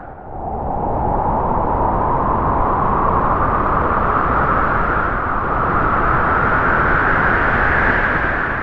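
Howling wind: a gust swells in about a second, its whistling pitch slowly rising over several seconds, then dies away near the end.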